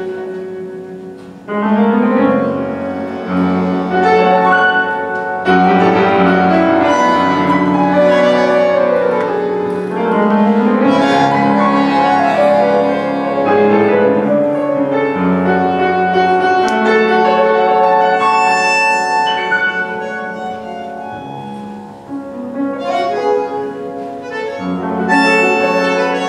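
Bandoneon and piano playing an Argentine tango live, the bandoneon's held reedy notes over the piano. The music drops briefly near the start, comes back in strongly, softens about three quarters of the way through, then swells again.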